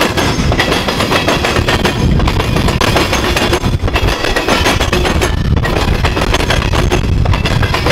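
Freight train covered hopper cars rolling past close by: a steady low rumble of steel wheels on the rails, with rapid clicks and clanks throughout.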